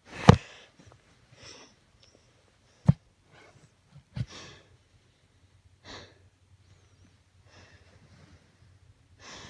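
A child breathing in short, noisy puffs close to a phone microphone, with three sharp handling knocks on the phone as a plush toy is pressed against it: the loudest just after the start, then about three and about four seconds in.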